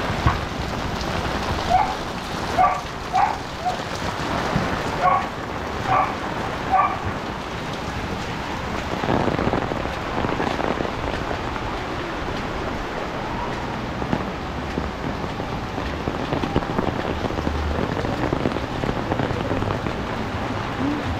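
Steady heavy rain falling on the street and on an umbrella overhead. A dog barks repeatedly in short calls over the first seven seconds, then only the rain remains.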